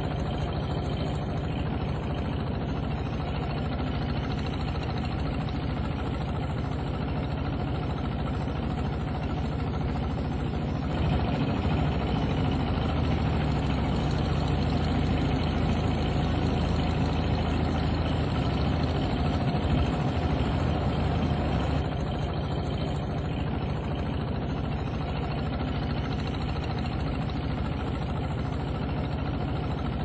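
Motor of a narrow wooden river boat running steadily under way, with water rushing past the hull. The engine gets louder and deeper about a third of the way in and drops back about two-thirds of the way through.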